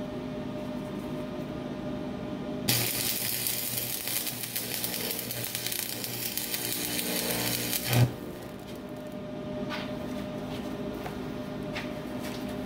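Stick-welding arc with a 6013 rod laying a tack weld on steel: the arc strikes about three seconds in, crackles and buzzes for about five seconds, then cuts off with a sharp pop. A steady hum runs underneath before and after.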